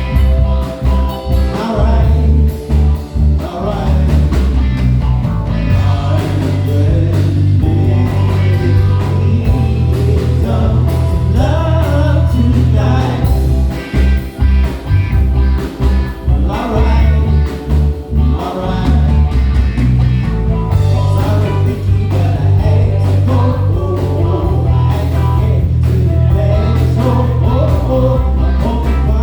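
Live band music: heavy electric bass and drums with keyboards, and a melodic lead line over them, in a blues/soul style.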